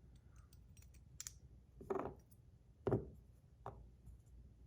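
Light handling of small fidget spinners: a few soft knocks and clicks, about two, three and nearly four seconds in.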